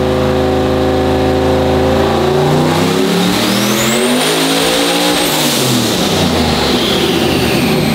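Turbocharged Chevrolet Silverado pickup's engine on a tuning pull. The revs climb steadily for a few seconds with a turbo whistle rising over them, then fall away again as the whistle winds down.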